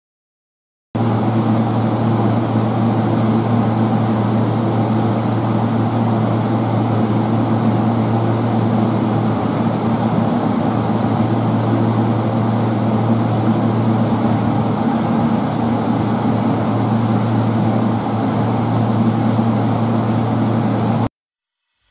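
A steady low mechanical drone with a strong hum, starting suddenly about a second in and cutting off abruptly near the end.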